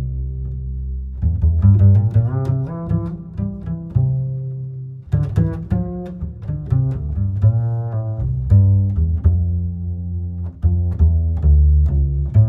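Instrumental background music with a strong bass line and quick, short notes.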